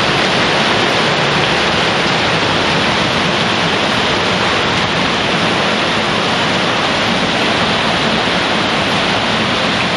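Rain pouring steadily, a dense even hiss.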